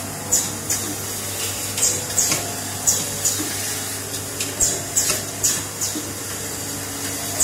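Automatic double-spindle nut tapping machine running: short hissing bursts come two or three times a second at uneven spacing, over a steady low hum.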